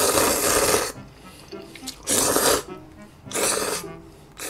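Loud slurping of chewy jjolmyeon noodles in gochujang sauce, sucked up from the bowl. There are four slurps, each about half a second to a second long, about one every second.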